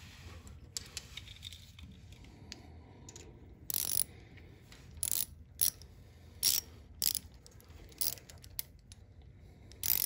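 Hand socket ratchet clicking in short strokes, a burst about every half to one second from about four seconds in, after a few faint handling clicks: the rocker arm bolt being run down on a Briggs & Stratton V-twin's new cylinder head.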